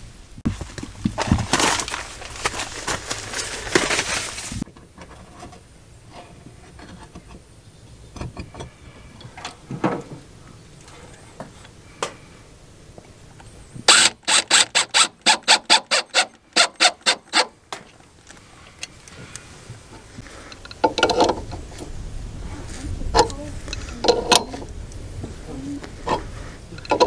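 Cordless drill driving a screw through a metal pipe strap into a wooden post, going in a quick run of short pulses, about four a second, for some four seconds. Near the end come scattered metal clicks and knocks of wrenches on a brass flare fitting.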